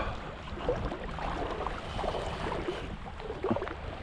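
Shallow sea water sloshing and lapping, with scattered small splashes, while a fish is played on a bent fly rod; wind on the microphone.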